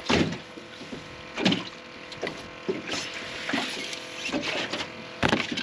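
Knocks and scrapes of a landing net and a freshly caught striped bass being handled in an aluminum boat, several separate bumps with rustling between, the sharpest near the end.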